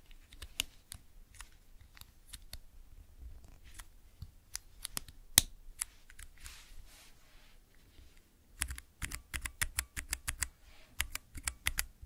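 Keystrokes on a Cherry MX mechanical keyboard: scattered single key clicks, one sharper clack about five seconds in, then a fast run of typing over the last few seconds.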